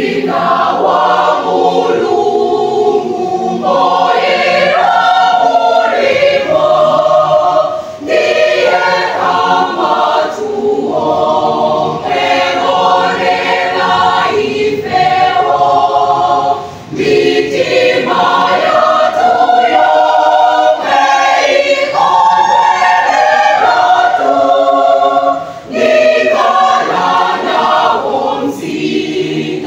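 Mixed choir of women's and men's voices singing a Malawian hymn in harmony, unaccompanied. The singing starts at once and runs in phrases, with short breaks about 17 and 26 seconds in.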